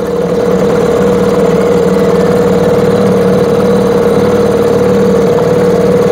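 Mercury 3.3 hp two-stroke outboard motor running steadily, a little louder within the first half second after the throttle grip is turned.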